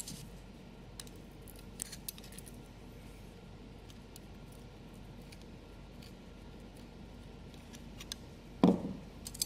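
Faint metallic clicks and light taps of a thin steel AC compressor valve plate with reed valves being handled by the fingers, over quiet room tone, with a brief louder sound near the end.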